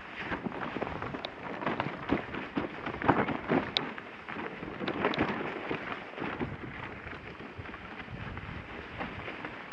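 Dog sled moving over snow: the runners scrape and the sled knocks and rattles in a dense run of irregular bumps over the first six seconds, easing off toward the end.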